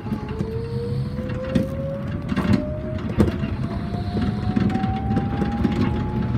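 Yamaman Yukarigaoka Line rubber-tyred people-mover car heard from the cab as it gathers speed: a motor whine rising steadily in pitch over a running rumble, with a few knocks.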